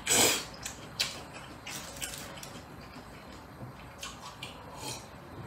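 Close-miked eating and drinking: a short, loud slurp of rice noodles right at the start, small mouth and chopstick clicks after it, and a few sips and swallows from a glass of soft drink about four seconds in.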